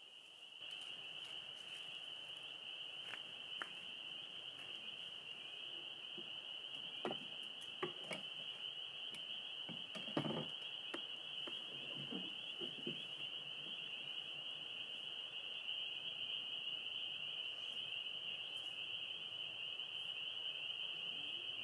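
Spring peepers calling in a dense, steady, high-pitched chorus, with a few scattered knocks and clicks around the middle.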